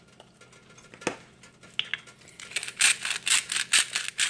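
Smoked salt shaken from a shaker: a fast, even run of rattling shakes, several a second, starting about halfway through after a single click.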